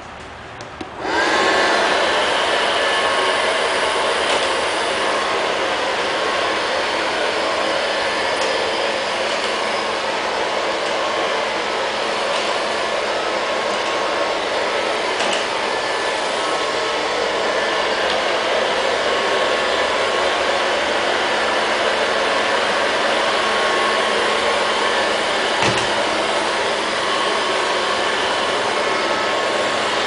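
Liectroux LL-302 robot vacuum cleaner switched on by its button: a click or two, then about a second in its suction fan and brushes start, the fan's whine rising briefly before it settles into a steady run. It keeps running steadily, with one knock late on.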